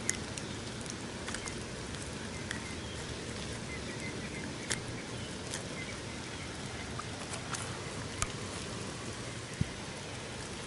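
Steady outdoor hiss with scattered sharp clicks and ticks as hands work a hook free of a small largemouth bass's mouth.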